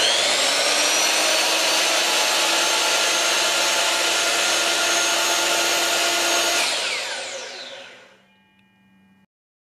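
DeWalt DWS782 miter saw's motor running. It starts with a rising whine, runs steadily at full speed for about six and a half seconds, then winds down with falling pitch after the trigger is released.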